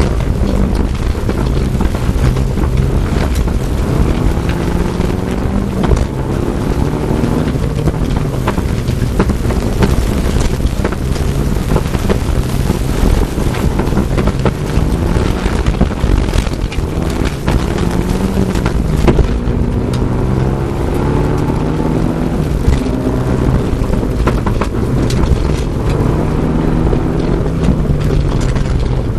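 Turbocharged four-cylinder engine of a Mitsubishi Lancer Evolution II rally car driven hard on a gravel stage. It climbs in pitch through each gear and drops at every shift, with gravel and stones rattling against the car's underside, heard from inside the cabin.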